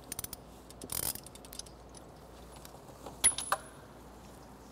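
Scattered small metallic clicks and clinks of hand tools and parts as an engine coolant temperature sensor is worked out of the engine, with a sharper click and a short high ring a little over three seconds in.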